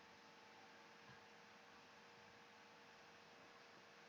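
Near silence: faint steady electrical hum and hiss.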